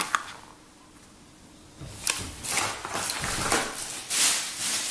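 Tackle packaging being handled: a sharp click, a short quiet, then about three seconds of rustling and crinkling with small clicks and knocks.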